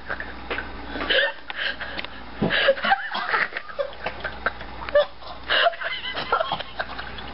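A person gagging and retching over a stainless steel kitchen sink in a series of separate heaves, a reaction to gulping down a nauseating mixed drink.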